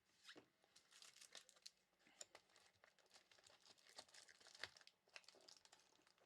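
Faint crinkling and rustling of plastic packaging as trading cards are handled, with irregular small clicks and a sharper snap about two-thirds of the way through.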